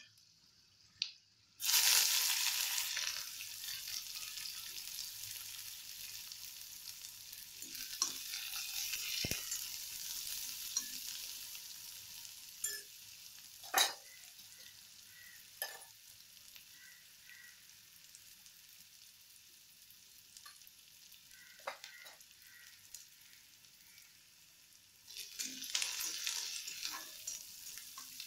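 Chopped onion, green chilli and cumin hitting hot oil in a kadhai with peanuts: a sudden loud sizzle about two seconds in that slowly dies down, with a few sharp clicks along the way. Near the end the sizzle rises again as a spoon stirs the pan.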